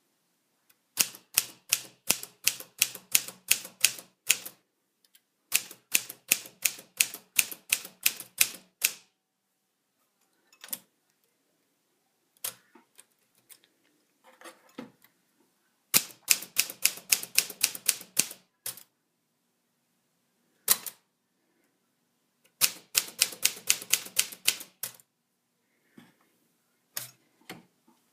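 1950 Smith-Corona Silent manual typewriter being typed on. There are four runs of quick keystrokes, about five sharp clacks a second, with single strokes and fainter mechanical clicks in the pauses between.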